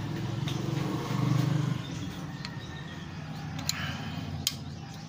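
A motor vehicle's engine hums nearby, loudest a little over a second in and then fading. A few light metallic clicks come from a ring wrench on a rocker-arm adjuster lock nut.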